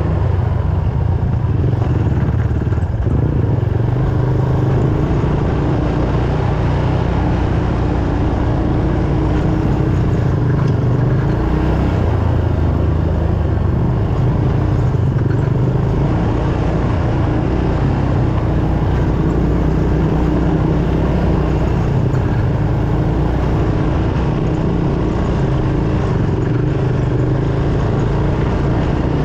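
ATV engine running steadily while riding a dirt trail, its note rising and falling a little with the throttle.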